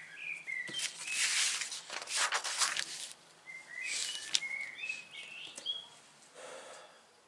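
Paper rustling as the pages of an instruction booklet are turned. A songbird sings two runs of short whistled notes, one at the start and one about four seconds in.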